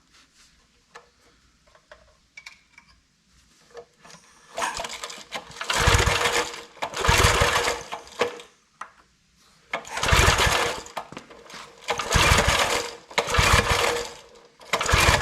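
Old Briggs & Stratton 5 hp single-cylinder engine being pull-started, about six recoil pulls a second or two apart, each turning the engine over briefly without it keeping running.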